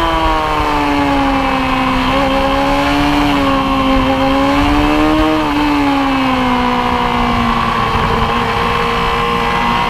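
Motorcycle engine running under way, its pitch easing down, picking up slightly, then easing off again as the throttle is rolled on and off.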